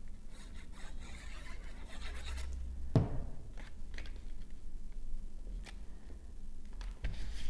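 Paper rustling and rubbing as a glued square of pattern paper is placed and pressed onto a paper box, with one sharp tap about three seconds in and a few lighter ticks.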